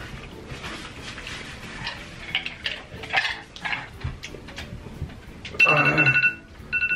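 Smartphone countdown-timer alarm beeping about five and a half seconds in, marking the end of the time, breaking off briefly and starting again near the end. Before it, small clinks and scrapes from handling things on the table.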